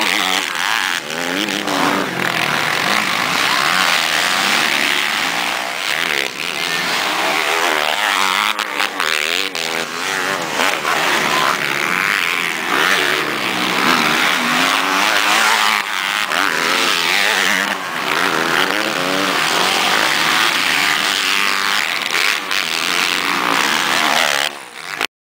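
Several motocross bikes racing on a dirt track, their engines revving up and down over one another as they ride through the jumps. The sound cuts off suddenly near the end.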